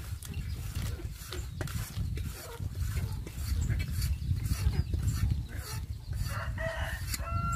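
A metal spoon scrapes and clicks against a metal pot as food is scooped out, over a steady low rumble. Near the end a chicken calls, twice, with drawn-out pitched notes.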